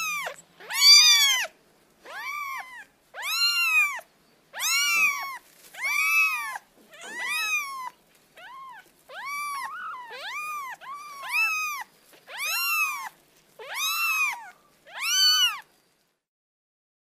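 Kitten meowing over and over, more than a dozen short, high-pitched meows, each rising then falling in pitch, about one a second. The meows stop shortly before the end.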